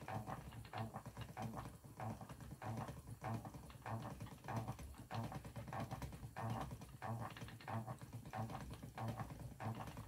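Wooden spinning wheel being treadled: a soft rhythmic knock about one and a half times a second as the wheel turns.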